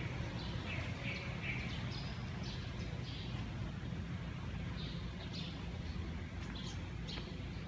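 Small birds chirping: repeated short, high chirps at irregular intervals over a steady low rumble.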